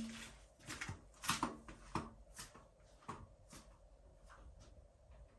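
Irregular light clicks and taps, several a second at first, then sparser and fainter.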